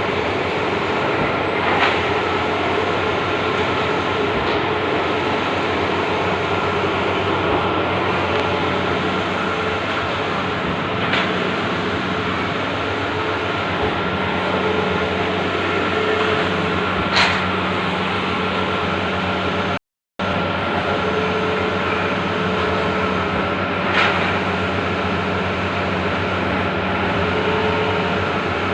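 Large-format outdoor banner printer running: a steady mechanical whir and hum with a few sharp clicks.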